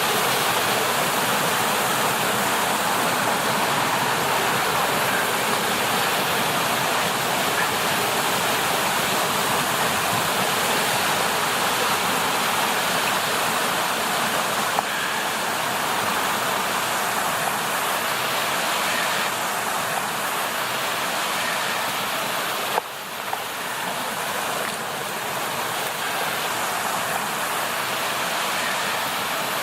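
Creek water rushing steadily over rocky cascades. The level drops a little and changes character suddenly about 23 seconds in.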